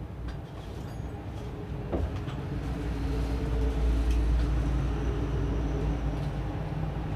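Steady low mechanical hum with a few faint clicks. It grows louder about two and a half seconds in.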